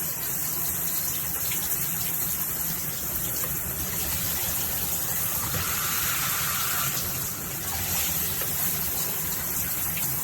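HammerHead dual shower head spraying water in a steady, continuous hiss, its tone shifting briefly about halfway through.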